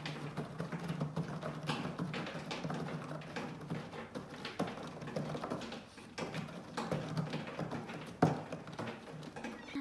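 A cat clawing a corrugated cardboard scratcher: quick, irregular rasping strokes, with one sharper knock a little after eight seconds.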